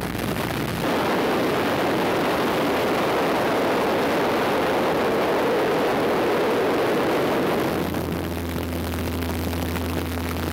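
Small plane's cabin noise: a loud, steady rushing of air over the engine drone. About eight seconds in, the rush eases and a steady low engine hum is left.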